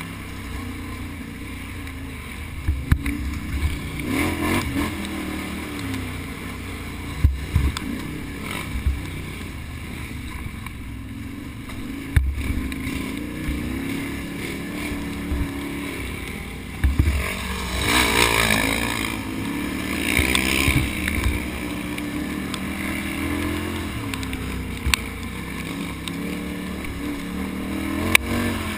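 Can-Am Outlander ATV engine running hard under race load, its pitch rising and falling as the throttle is worked, with several sharp knocks and a louder rushing stretch about two-thirds of the way through.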